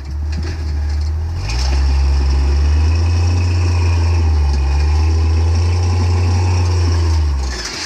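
Off-road vehicle's engine revving under load as it tries to crawl up a rock ledge with its belly pan resting on the rocks. The revs rise about a second and a half in, hold steady, then drop off near the end.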